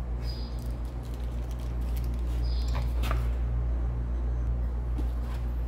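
Steady low machinery hum of a workshop with a slow, regular throb, broken by a few short high-pitched chirps or squeaks.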